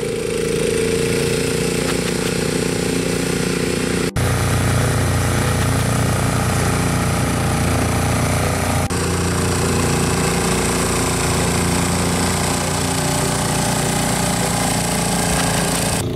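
ATV with a front-mounted Rammy snowblower running steadily under load while clearing deep snow: engine drone together with the rushing of the blower throwing snow. Two very brief breaks, about 4 and 9 seconds in.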